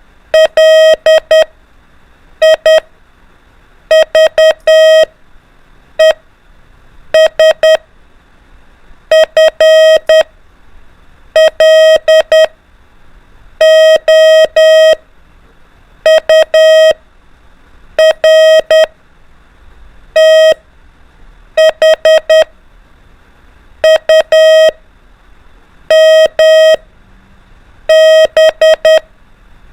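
Morse code practice tone beeping out single alphabet letters as dots and dashes, one letter about every two seconds with short gaps between.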